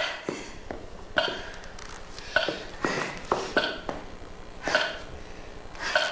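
A string of short, sharp pitched sounds, about ten in all, in an irregular rhythm: some come in quick clusters, others after gaps of about a second. Each one stops quickly.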